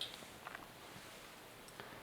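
Faint clicks and light handling noise of small motorcycle parts being handled: a soft click at the start, a couple about half a second in, and another near the end.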